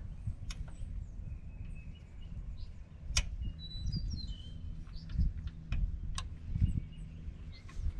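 A few sharp metallic clicks and knocks of hand tools working on the loader's hydraulic hose fittings, over a low rumble, with birds chirping.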